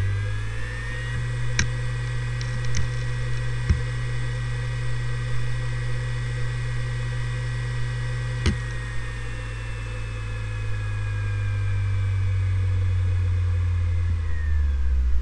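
Seagate Barracuda ES ST3250820NS 7200 rpm hard drive finishing its spin-up with a rising whine, then idling with a steady whine over a strong low hum and a few sharp head clicks. Near the end the spindle starts to spin down and the whine falls.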